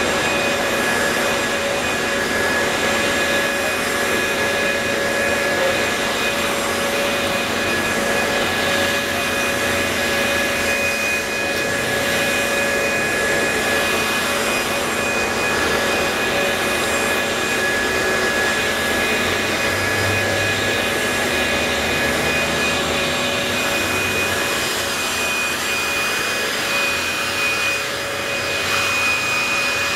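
Corded electric leaf blower running steadily, blowing rainwater off wet asphalt: a constant rush of air with a steady motor whine of several fixed pitches over it.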